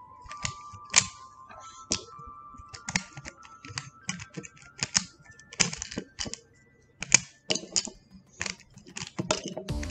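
Plastic pieces of a MoYu RS3M 2021 MagLev 3x3 speed cube clicking and clacking as it is pulled apart by hand, with individual edge and corner pieces snapping out. The clicks come irregularly, a dozen or more, with a brief pause about two-thirds through.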